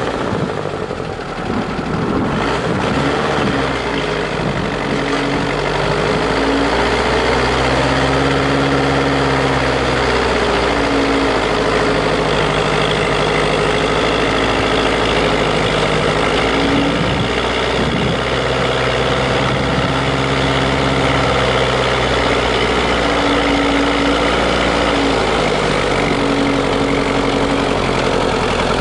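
GAZ-66 truck's V8 petrol engine revving up and down as the truck churns through deep snow, its pitch rising and falling every few seconds.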